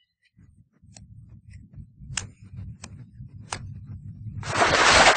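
Anime footsteps sound effect: evenly paced steps sound as sharp ticks about two-thirds of a second apart over a low rumbling drone. A loud rush of noise swells in about four seconds in.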